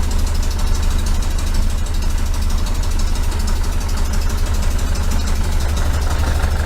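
1973 VW Super Beetle's air-cooled flat-four engine idling steadily.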